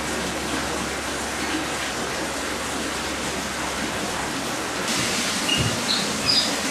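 Steady rushing background hiss. Near the end it is joined by several short, high chirps and a few low bumps.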